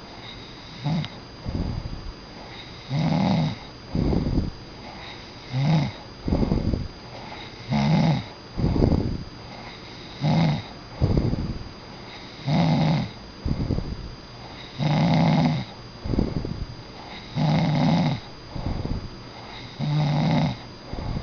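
A sleeping animal snoring in a steady rhythm: a loud snore about every two and a half seconds, with a shorter, softer breath between.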